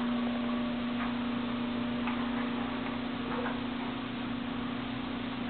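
A steady low hum, with three faint, short, high whimpers from a Jack Russell terrier crying to reach guinea pigs.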